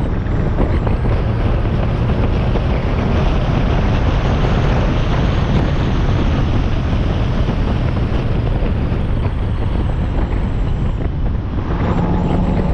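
Mazda MX-5 NB's four-cylinder engine and K&N air intake heard from the bonnet while driving, largely buried under wind buffeting the microphone. A steady engine note comes through near the end.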